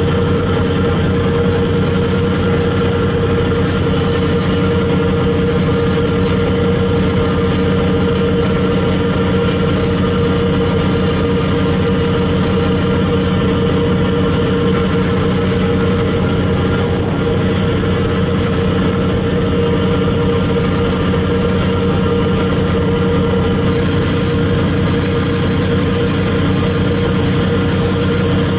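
Ferry engines running with a steady, unchanging drone, heard from the stern deck over the rush of the churning wake.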